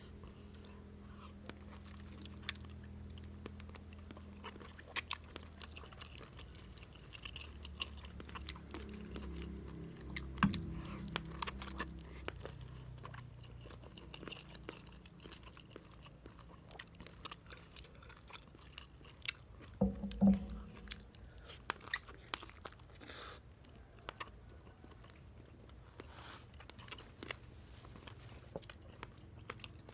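A person chewing and biting food close to the microphone, with many short mouth clicks and a louder burst about twenty seconds in.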